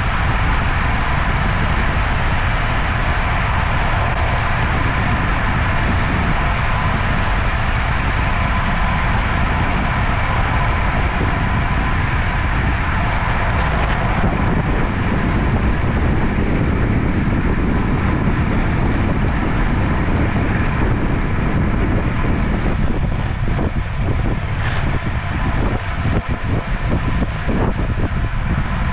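Wind rushing over the microphone of a camera on a moving road bicycle, a loud, steady rumble that turns more gusty near the end.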